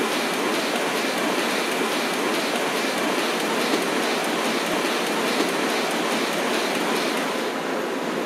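Printing-hall machinery running steadily, a dense mechanical clatter with a fast, regular beat of about three a second.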